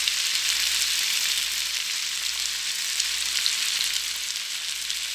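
Diced onion, green bell pepper and tomato sautéing in oil in a frying pan: a steady sizzle with many small crackles.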